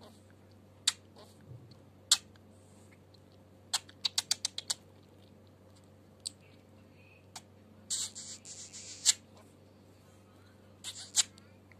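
Budgerigar making sharp, scattered clicking sounds, with a quick run of about six clicks near the middle. About two-thirds through there is a brief hissy, scratchy burst.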